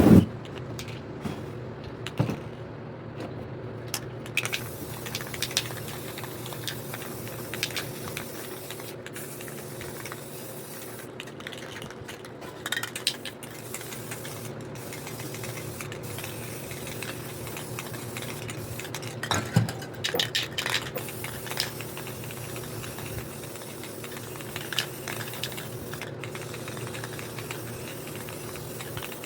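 Spray painting: aerosol spray paint cans clinking and knocking as they are handled, with short hisses of spray, over a steady low hum.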